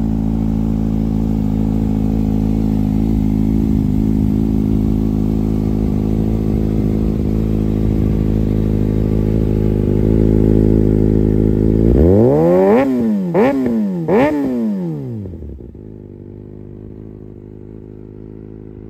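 Kawasaki Ninja ZX-6R's 636 cc inline-four idling steadily through an M4 aftermarket slip-on exhaust. About twelve seconds in, the throttle is blipped three times in quick succession, each rev rising and falling. After that the engine settles back to a quieter idle.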